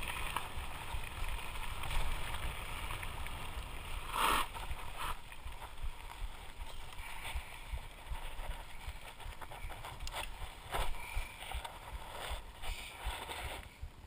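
Lapierre Spicy mountain bike rolling over loose gravel, heard from a handlebar-mounted camera, with wind rumbling on the microphone. Knocks and rattles from the bike come over the bumps, the loudest about four seconds in.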